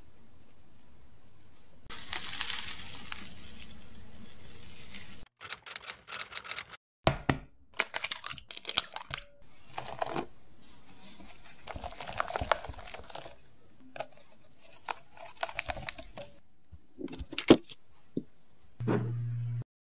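Close-miked kitchen handling sounds. First a plastic piping bag crinkles as custard is squeezed into a doughnut. Then come a run of small taps and clinks as flour, egg and milk go into a glass bowl, a few sharp knocks as a knife cuts butter against a ceramic bowl, and a short low hum near the end.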